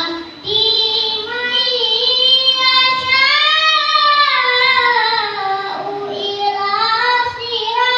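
A young boy reciting the Qur'an in the melodic tilawah style. After a short opening phrase, he holds one long ornamented phrase for several seconds, its pitch rising and then falling with a slight waver, and starts a new phrase near the end.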